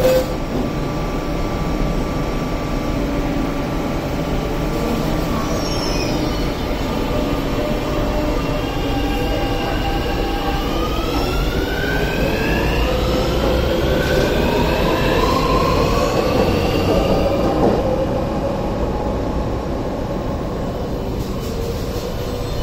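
MTR South Island Line S-train pulling out of the station over a steady low rumble. From about eight seconds in, the traction motors whine in several stacked tones that rise in pitch as it speeds up, easing off near the end.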